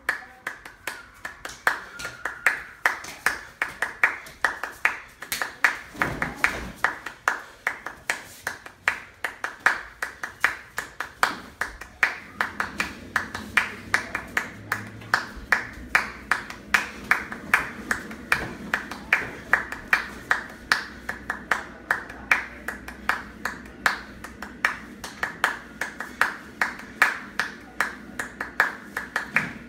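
Steady rhythmic hand clapping, about three claps a second, keeping the beat for dancing.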